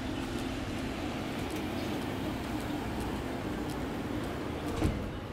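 Street ambience: a steady hum of traffic with a faint low drone, and one short knock near the end.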